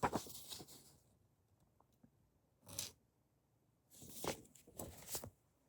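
Faint rustling and sliding of comic books being handled and shuffled, in short bursts: one at the start, a brief one near three seconds in, and a few about four to five seconds in.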